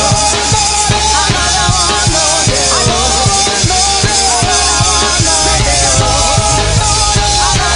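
Up-tempo live gospel praise-break music: a fast, steady drum-kit beat with a wavering melodic line over it.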